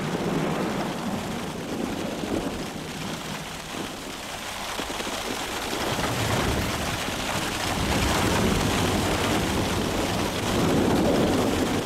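Volcanic ash and small rocks falling thickly, a continuous rain-like patter, with a deeper rumble building about halfway through.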